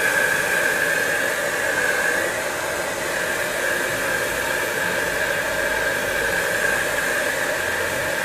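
Handheld air dryer blowing steadily on freshly airbrushed acrylic paint to speed its drying: a loud rushing hiss with a steady high whine from its motor.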